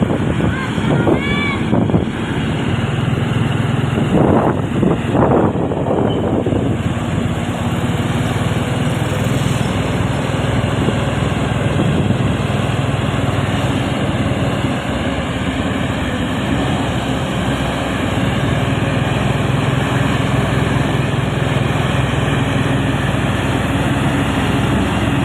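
Motor vehicle engine running steadily with road and wind noise, and a few brief louder sounds in the first six seconds.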